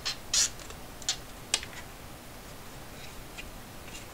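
Handling noise from a calculator's plastic back case: a brief scrape just after the start, then a few light clicks over the next second or so, and a couple of faint ticks later.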